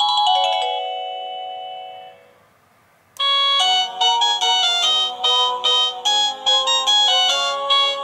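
IntendVision wireless doorbell chime playing its electronic tunes: one melody of clear ringing notes dies away over the first two seconds, then after a brief silence the next tune starts about three seconds in, with quick bright notes.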